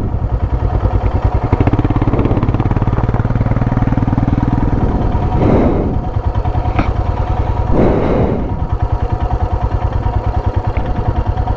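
Royal Enfield Himalayan's 411 cc single-cylinder engine running steadily at low revs, with an even thumping beat. Two short rushes of noise come about five and a half and eight seconds in.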